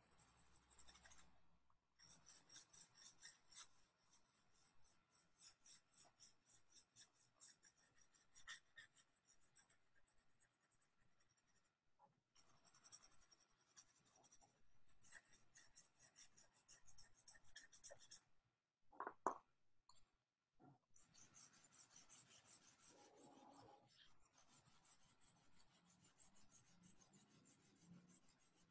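Faint, quick back-and-forth scratching of a dry drawing stick on paper, several strokes a second, in runs broken by brief pauses as the marks are hatched and scribbled in. One sharper, louder tap comes about two-thirds of the way through.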